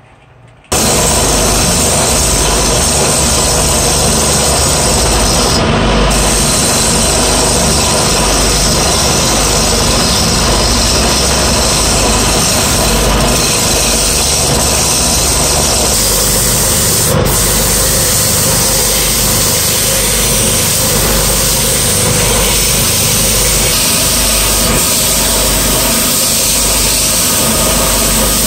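Wood lathe running while a hand-held turning tool cuts a spinning block of wood: a steady rasping of the cut over the lathe's motor hum. About halfway through the sound changes, and by the end sandpaper is being held against the spinning piece.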